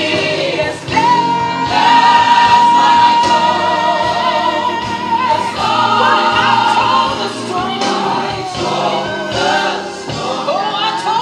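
Gospel music with a choir singing; about a second in, a voice holds one long high note for roughly two seconds before the singing moves on.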